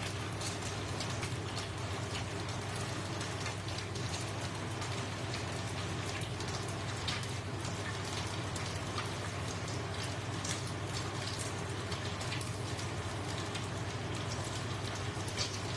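Bánh xèo batter frying in oil in a pan: a steady sizzle with scattered pops and crackles, over a steady low hum.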